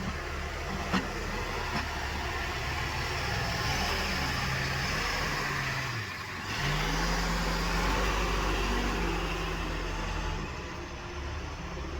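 Diesel engine of heavy machinery running under load, its pitch rising and falling as it is revved and eased. The sound dips briefly about six seconds in, and there is a sharp click about a second in.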